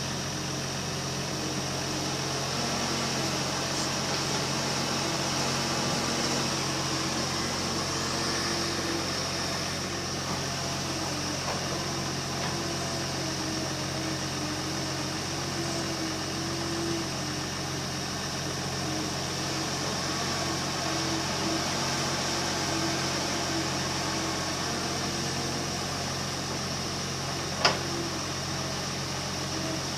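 Kobelco 330 excavator's diesel engine running steadily while it works, with a steady high hiss over the engine drone. A single sharp knock sounds near the end.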